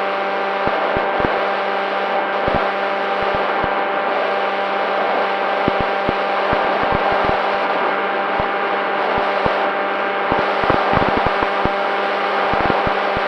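Electric motor and propeller of an FX-61 flying-wing model plane running steadily, heard from on board, with frequent short sharp clicks and crackles scattered through, thickest near the end.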